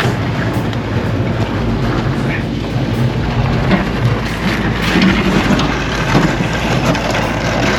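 Heavy machinery engine running steadily under load, with frequent clanks, knocks and crunching of debris being broken up and moved.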